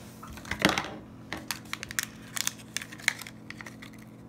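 Plastic toy packaging being handled and opened: a rustling swish, then a quick, irregular run of sharp crinkles and clicks.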